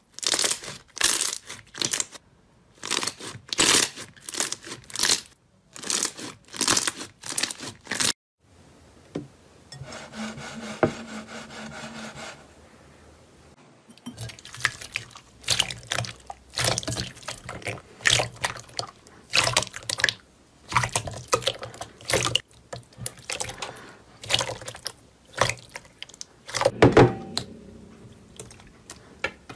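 Hands squeezing and pressing glossy slime: wet squelches and crackling pops of trapped air, repeated every second or so. In the middle a steadier hiss with a faint hum replaces them for several seconds, then the squelching and popping come back, quicker and denser.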